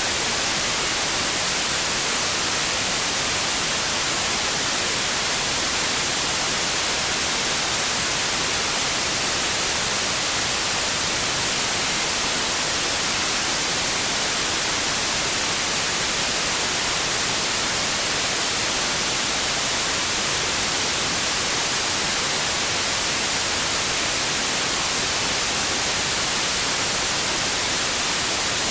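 Steady white noise: an even, unchanging hiss, strongest in the upper frequencies.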